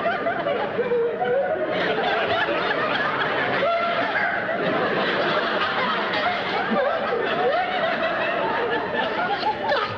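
Studio audience laughing without a break, many voices overlapping at a steady, loud level.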